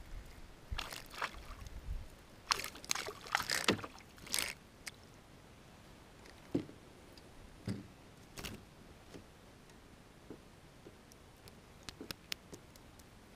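Canoe paddling: several splashy paddle strokes in the water in the first few seconds, then quieter, with scattered small knocks and drips.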